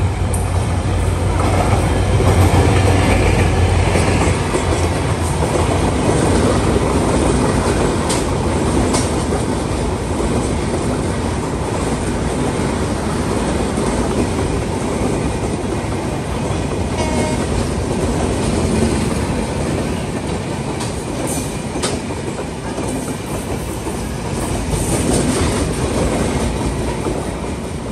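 Passenger express train running through a station: the diesel locomotive's low engine hum in the first few seconds, then a long line of coaches going by with steady wheel-on-rail noise and clickety-clack over the rail joints.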